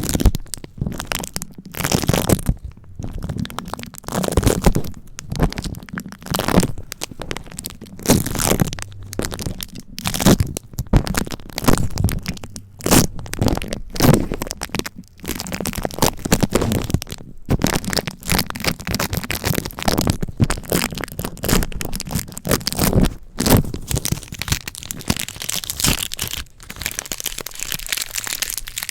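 Adhesive tape crunched and crackled right against a bare microphone, in a fast, irregular run of crackling strokes with brief gaps between them.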